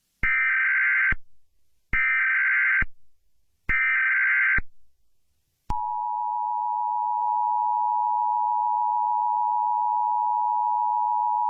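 Emergency Alert System header: three one-second bursts of screechy SAME data tones with short gaps between them. About six seconds in, the steady two-tone EAS attention signal starts and holds.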